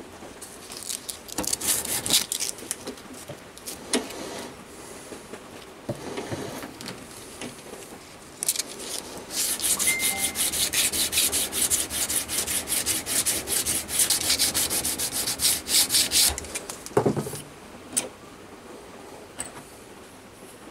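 Hand sanding of an aluminium plate clamped in a vise: abrasive rubbed back and forth in quick, even strokes. A few short passes come first, then a long steady run of fast strokes in the middle, ending in a single knock.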